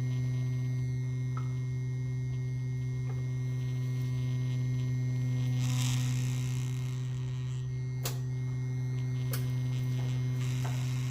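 Steady electrical mains hum, a low tone with overtones, with a short stretch of hiss about six seconds in and two sharp clicks near the end.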